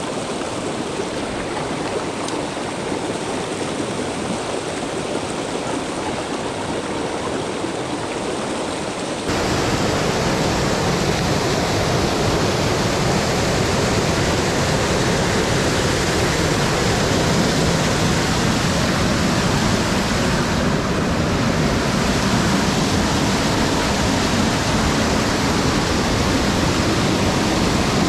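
Mountain stream water rushing steadily, an even hiss of flowing water; about nine seconds in it suddenly becomes louder and fuller in the low end.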